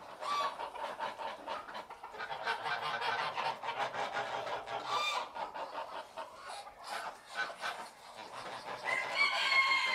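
A flock of geese calling: many short cackling calls overlap in a fast chatter, with a louder drawn-out honk near the end.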